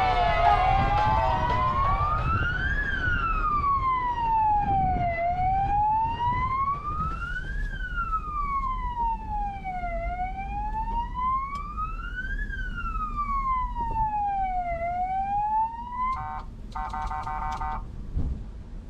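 A siren-like wail: one tone slowly rising and falling, a full cycle about every five seconds, over a low rumble. Music with a pulsing beat comes in near the end.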